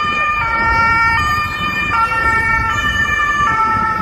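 Ambulance's two-tone siren alternating between a high and a low pitch about every three-quarters of a second, with street noise underneath.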